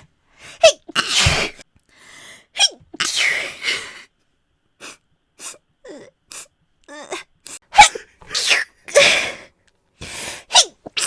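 A young woman sneezing again and again: about four full sneezes, several with a short rising 'ha-' catch of breath just before the burst, and faint breaths and clicks in the gaps between them.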